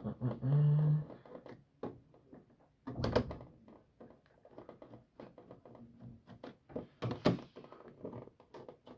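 Scattered clicks and knocks of hands and tools working on a household breaker panel's plastic breakers and fittings, with two louder thunks about three seconds in and about seven seconds in.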